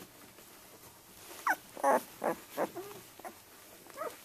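Twelve-day-old Samoyed puppy whimpering and squeaking: about seven short cries, some sliding in pitch, starting about a second and a half in.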